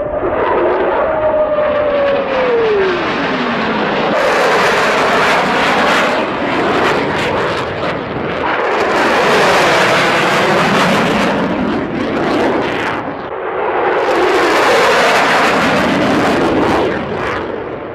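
Fighter jet flying past low: a falling engine whine in the first few seconds, then the loud rushing noise of the jet swelling and fading three times as it makes its passes, with sweeps running up and down through it.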